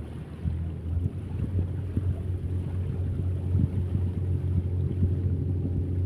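A low, steady engine hum, stronger from about half a second in, with wind buffeting the microphone.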